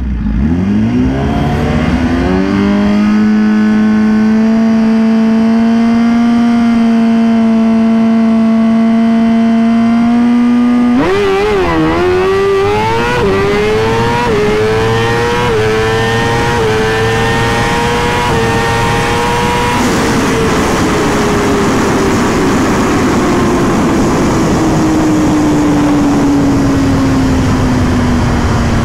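2020 Suzuki GSX-R1000 inline-four engine revved up and held at steady high revs on the start line, then launched about eleven seconds in: the revs dip as the clutch grabs, which the rider blames on a clutch shimmed too stiff and pulling the motor down. The engine then climbs in steps through several quick upshifts for about eight seconds of a drag pass, goes off throttle, and winds down slowly as the bike coasts.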